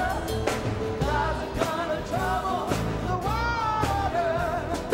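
Music: a solo singing voice with vibrato over a band with a drum beat and bass.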